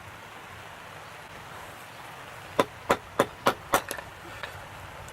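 Small axe chopping firewood: five quick, sharp blows, about three a second, starting a little past halfway.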